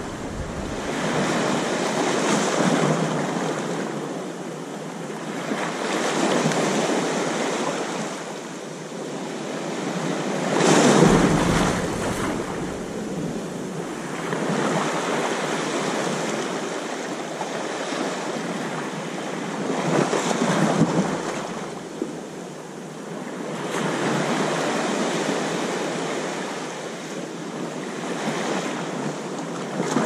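Small waves washing up over the sand at the water's edge and drawing back, the hiss rising and falling every few seconds, with the strongest surges about eleven and twenty seconds in.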